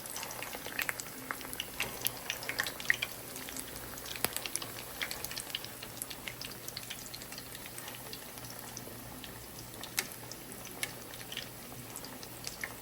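Jerk chicken meatballs cooking in a pot: steady bubbling with frequent small, irregular pops and crackles, and a sharper click about ten seconds in.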